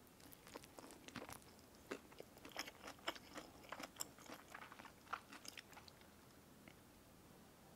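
Someone biting and chewing a crisp pan-fried rice paper roll: a quick run of irregular crunches and crackles that stops about six seconds in.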